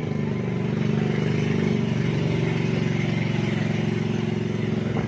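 Motor of a small wooden river boat running steadily at cruising speed.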